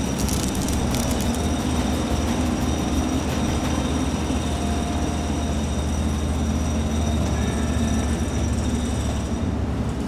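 Steady, deep engine rumble of heavy construction machinery running without a break, a sound effect standing in for the toy excavator at work.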